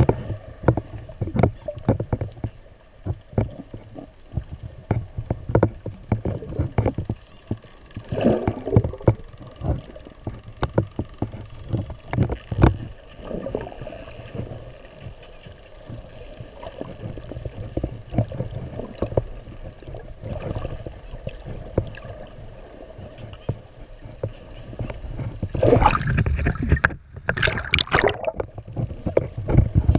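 Underwater sound of spinner dolphins whistling: many faint, short, high upward-sliding whistles throughout, over a low rumble of water moving against the camera with frequent knocks. Two louder rushes of water noise come about eight seconds in and again near the end.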